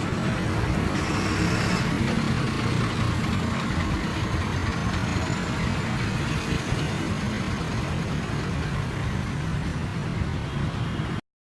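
Motor vehicle engine running steadily with a low hum, cut off abruptly near the end.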